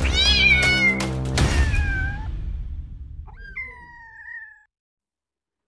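Young kitten meowing: a few short meows in the first two seconds, then one longer meow about three and a half seconds in.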